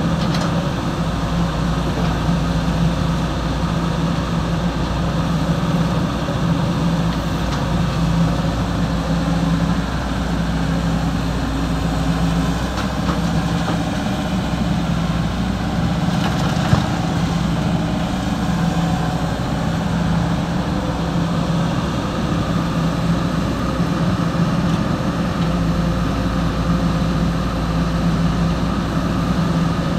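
Excavator's diesel engine running steadily, with a low hum that pulses on and off about once a second and a single sharp knock just past the middle.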